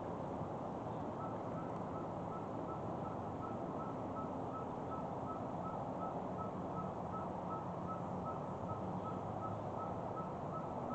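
Steady wind noise with a rapid, even beeping on one high pitch, about three short beeps a second, like a vehicle's reversing alarm.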